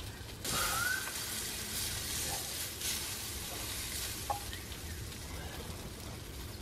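Sausages frying in hot fat in a pan over a campfire. The sizzle flares up suddenly about half a second in as the food is moved in the pan, then settles to a steady, quieter sizzle.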